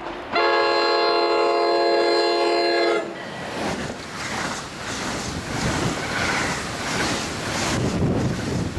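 A train's air horn sounds one long blast of about three seconds, several notes at once like a chord. It cuts off, and the noise of the train going by follows.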